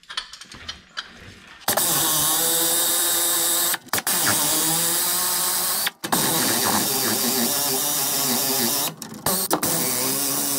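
Power ratchet spinning U-bolt nuts off a leaf spring's U-bolts, running in four spurts with short pauses between, its pitch wavering as the nut turns. A few faint clicks come before the first spurt.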